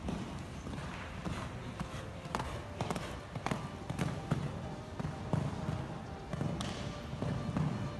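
A horse's hooves cantering on sand arena footing: a steady rhythm of dull thuds with a few sharper knocks.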